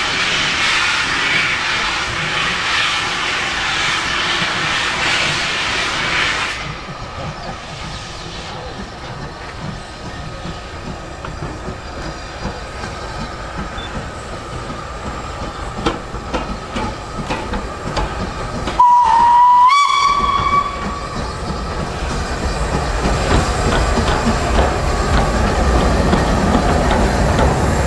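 LNER B1 4-6-0 steam locomotive No. 1264 hissing loudly with steam blowing off around it. The hiss cuts off suddenly about six seconds in. About two-thirds of the way through comes a single steam whistle blast of about two seconds, its pitch stepping slightly up. Then the locomotive's rumble grows as it draws nearer.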